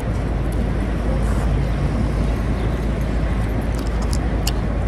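Steady city street noise: passing traffic with a heavy low rumble. A few short clicks come near the end.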